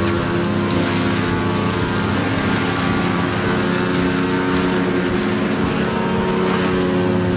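A heavy machine's large engine running at a steady speed, a constant droning hum with no breaks.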